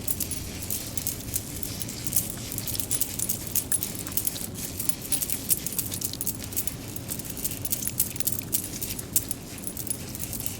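Close-miked fingernails scratching through oiled hair and scalp: a rapid, dense stream of crackly scratches.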